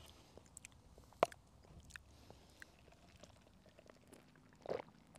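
Close-up chewing of crispy french fries: soft mouth clicks and smacks, with one sharper click about a second in.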